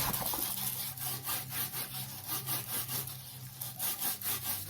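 Hands rubbing and handling a diamond painting kit's plastic packaging: quick scratchy strokes, about four a second, over a faint steady low hum.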